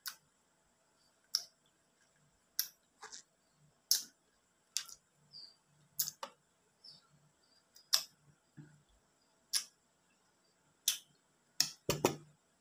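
Wet mouth smacks from eating ripe mango flesh: short, sharp smacking clicks about once a second, some in quick pairs, bunching together near the end.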